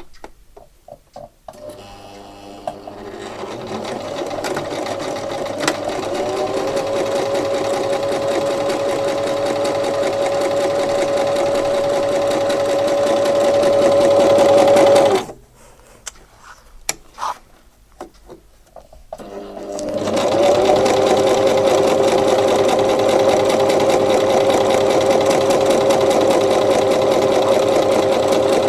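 Sewing machine stitching. It winds up to speed over the first few seconds and runs steadily, stops abruptly about halfway, and after a few scattered clicks runs again at full speed.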